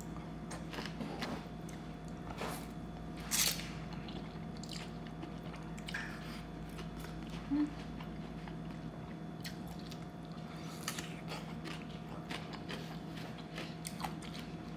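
A person biting into and chewing raw bitter melon, with scattered wet mouth clicks, the loudest about three seconds in. A faint steady hum runs underneath.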